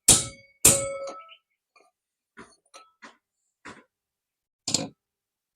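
Metal striking metal as the worn sleeve bush is knocked out of a small exhaust fan motor's end cover: two loud ringing clangs at the start, a few lighter taps, and one firmer strike near the end.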